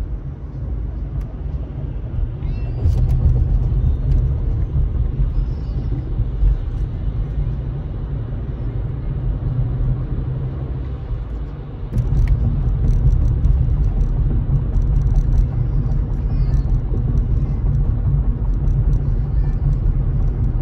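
Road noise heard from inside a moving car: a steady low rumble of tyres and engine, getting louder about three seconds in and again about twelve seconds in.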